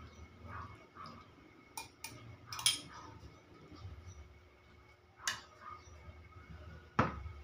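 Dishes and utensils clinking during a meal: five sharp clinks spread over several seconds, the loudest about two and a half seconds in and near the end.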